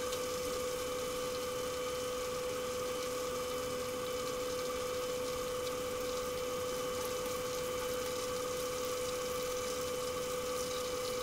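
Chicken wings deep-frying in a wok of hot oil: a steady sizzle under a constant mechanical hum with one steady tone.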